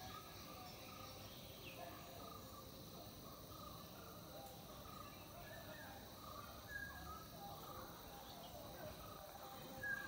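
Faint outdoor bird chorus: many short chirps and calls overlapping over a steady hiss.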